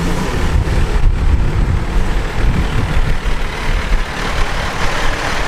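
Diesel dump truck engine idling close by, a heavy steady low rumble.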